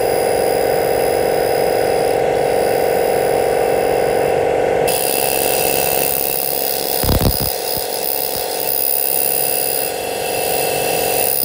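Handheld fiber laser cleaner ablating rust off a steel plate: a steady buzzing hum with a high hiss. The hiss grows brighter about five seconds in, and a brief low thump comes near the seven-second mark.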